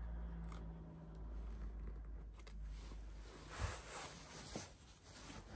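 Faint clicks and scraping of a small screwdriver working the metal hinge screws of a laptop chassis, with one sharper click a little past halfway.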